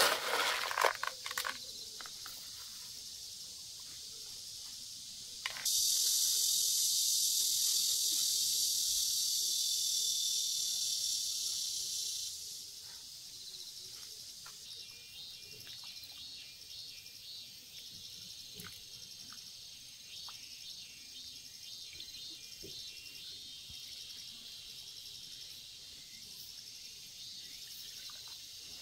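Summer insects in a rural garden: a high, steady buzz that starts abruptly about five seconds in and drops away about seven seconds later, followed by fainter, rapidly pulsing chirping. A brief cluster of sharp sounds right at the start is the loudest moment.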